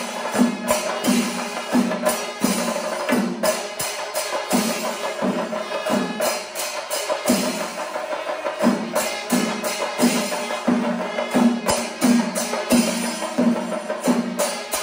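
Chenda melam: chenda drums beaten with sticks in a dense, steady rhythm with cymbals clashing over it. A low beat recurs just under twice a second.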